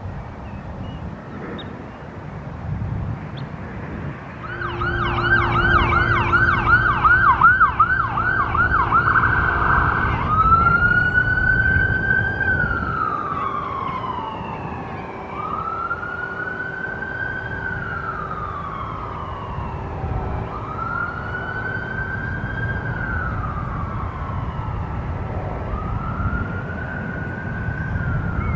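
Emergency vehicle siren: a fast yelp starts about four seconds in, then near ten seconds it switches to a slow wail that rises and falls about every five seconds. A low rumble runs underneath.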